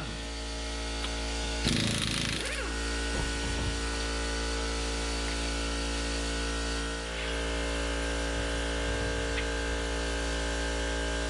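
Impact wrench rattling in a burst about two seconds in as it spins off the lug nuts, over a steady machine hum.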